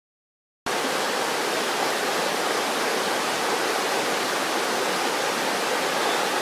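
A fast-flowing river rushing over rocky rapids, a steady even rush of water that cuts in abruptly after a moment of dead silence, a little over half a second in.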